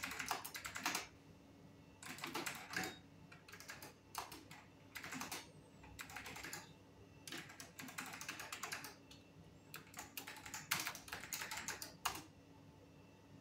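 Typing on a computer keyboard in a series of short bursts of key clicks, stopping about twelve seconds in, with a faint steady hum underneath.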